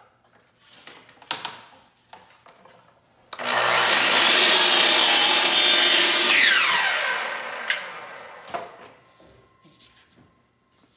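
Milwaukee sliding compound mitre saw starting up about three seconds in and cutting through MDF crown moulding for about a second and a half. The blade then winds down with a falling whine, and a few light knocks follow as the piece is handled.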